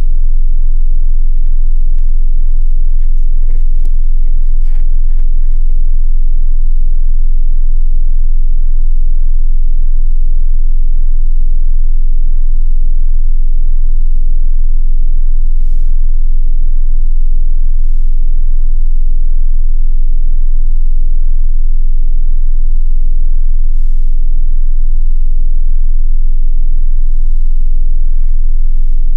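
Steady, loud low rumble of a stopped car's engine idling, with a few faint clicks about three to five seconds in.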